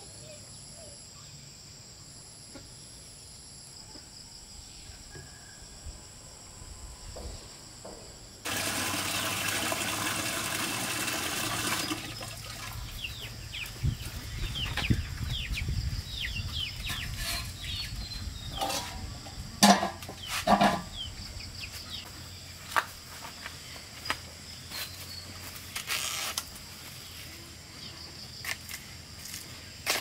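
Chickens clucking and cheeping, with many short falling peeps in the second half and two louder calls about two-thirds of the way in. Before that comes a steady high insect drone, then a few seconds of hiss.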